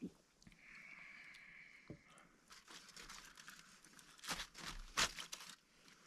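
Crinkling and rustling handling noise, a dense run of crackles with two sharper snaps about four and five seconds in.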